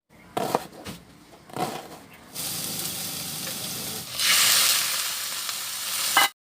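Food sizzling in a frying pan, with a few knocks of a utensil in the first two seconds. The sizzle grows louder about four seconds in and cuts off suddenly near the end.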